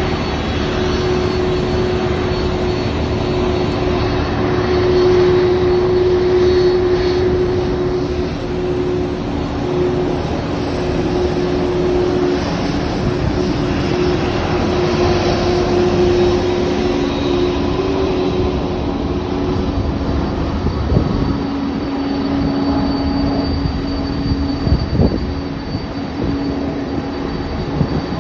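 Boeing 767-300 airliner taxiing after landing, its jet engines running at idle: a steady rumble with a low hum of two tones that shifts slightly partway through. A few short knocks come near the end.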